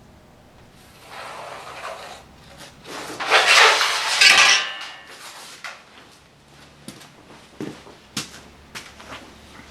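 Sheet metal and hand tools being handled on a bench: a rattling metal scrape that swells for a couple of seconds in the first half, followed by a series of light clanks and taps.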